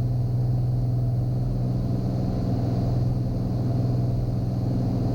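Cirrus SR22T's turbocharged six-cylinder engine and propeller droning steadily in cruise, heard from inside the cabin, with a strong low hum.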